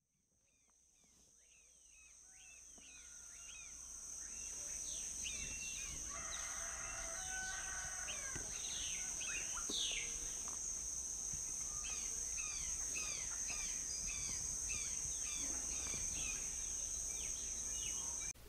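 Rural outdoor ambience of many birds chirping in quick repeated calls over a steady high-pitched whine. It fades in over the first few seconds and cuts off just before the end.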